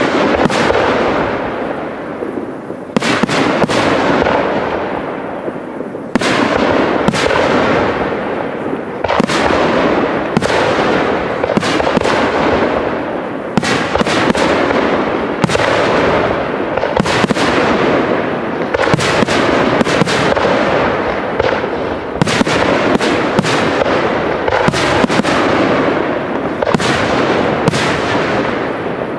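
Aerial firework shells bursting in quick succession, a sharp bang every second or so, each trailing off into crackle and echo so that the bursts overlap into a continuous rumble.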